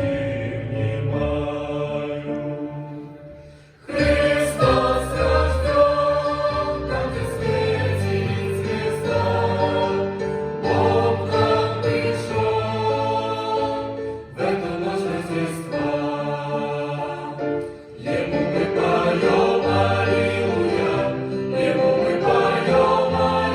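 Choir singing a slow song in sustained chords, with a low voice part beneath. The phrase fades away about three seconds in, and the full choir comes back in loudly about a second later.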